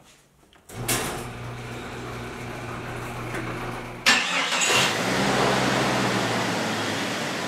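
A garage door opener's motor starts with a click and runs with a steady hum. About four seconds in, a 1998 Jeep Cherokee XJ's engine cranks briefly, catches and settles into a steady idle.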